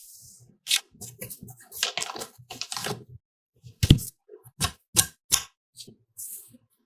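Irregular clicks, taps and knocks of computer parts being handled and fitted together, with the sharpest knock about four seconds in.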